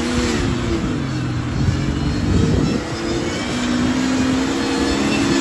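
Jeep Cherokee XJ engine revving hard under load as it claws up a loose sandy slope, its pitch wavering and dipping about halfway through, then climbing again.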